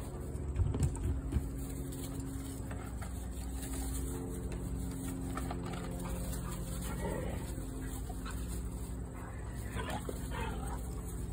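Siberian huskies playing rough, giving a few short dog vocalisations about seven and ten seconds in, over a steady low machine hum; a few knocks about a second in are the loudest sounds.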